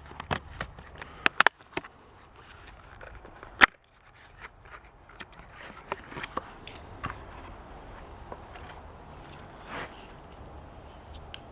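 Plastic blister packaging crackling, with scattered clicks and scrapes, as a Hot Wheels die-cast toy car is worked free of its card; one loud snap about four seconds in.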